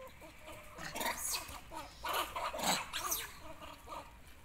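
Long-tailed macaques calling in a run of short, harsh cries, loudest between about one and three seconds in.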